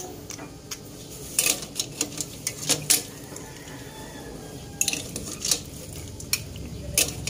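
Dishes and metal utensils clinking: a scatter of sharp clinks in two clusters, then single clinks near the end.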